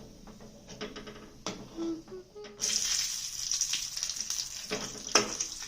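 Food dropped into hot oil in a pan: quiet knocks of a utensil at first, then a crackling sizzle that starts suddenly about two and a half seconds in and keeps going, with a couple more knocks against the pan.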